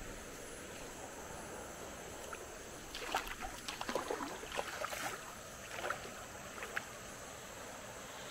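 Water splashing in a run of irregular bursts for about four seconds, starting a few seconds in, over a steady high background hiss.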